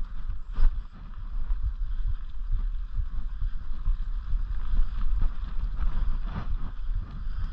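Mountain bike rolling down a dirt singletrack: a constant low rumble of wind buffeting the camera's microphone and tyres on the trail, with a couple of sharper knocks from bumps, one near the start and one near the end.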